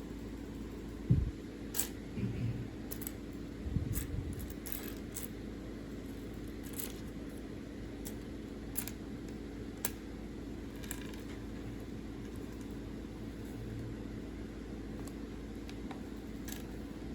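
Small plastic LEGO pieces being handled: scattered sharp clicks and clinks, with a few dull knocks in the first few seconds, over a steady low hum.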